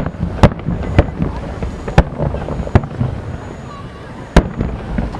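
Aerial firework shells bursting overhead: about six sharp booms in irregular succession, with rumbling between them and a murmur of voices underneath.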